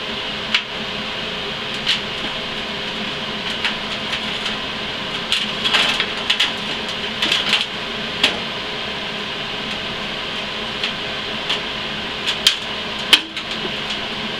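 Light metallic clicks and knocks as a portable bandsaw is set into and shifted on a welded square-tube steel stand. They come scattered, with a busier run about midway and the sharpest knock near the end, over a steady background hum.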